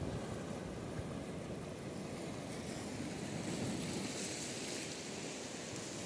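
Small waves washing onto a sandy beach: a steady rush of surf.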